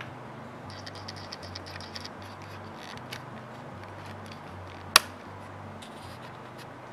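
Camera autofocus motor chattering in short runs of fine rapid clicks, about a second in and again around three seconds, over a steady low hum. One sharp click stands out near five seconds.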